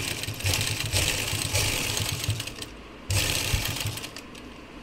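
Sewing machine stitching over a cord of bobbin elastic on a sleeve, running in a longer burst that stops about two and a half seconds in, then starting again for about another second.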